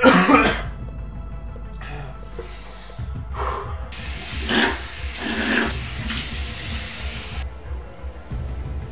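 Bathroom sink faucet running for about three and a half seconds and then shut off, with splashes as water is scooped from the stream, over low background music. A short loud burst of sound comes at the very start.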